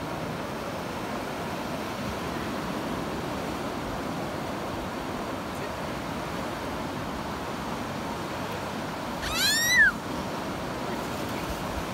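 Surf washing steadily on the beach, and a little over nine seconds in a single short, high dog whine that rises and then falls in pitch.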